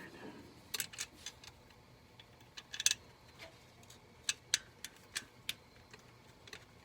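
Scattered sharp clicks and light clinks, about a dozen at irregular intervals, from hand work with tools and parts while a carburetor is being fitted to a truck engine.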